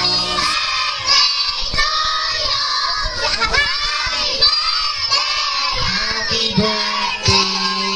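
Many young children shouting together, their voices overlapping. The end of a children's song cuts off about half a second in.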